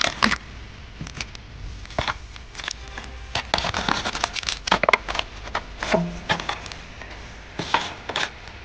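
Thin aluminium foil pan and plastic food wrapping crinkling and clicking as they are handled, a string of short irregular crackles with a few sharper knocks.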